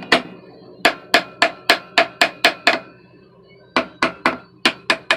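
Hammer blows on a metal irrigation pump, knocking its parts loose to separate them. The blows come in two quick runs of about three or four a second, with a short pause between, and each blow leaves a brief metallic ring.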